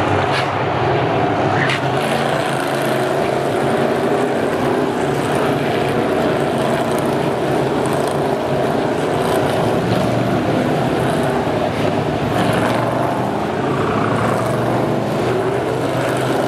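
Several Whelen NASCAR Euro Series stock cars' V8 engines running hard as a pack passes through a corner. Their notes overlap into one steady, loud drone, with slight rises and falls in pitch.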